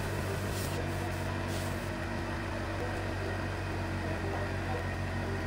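A machine runs with a steady, even hum throughout, with two short hisses about half a second and a second and a half in.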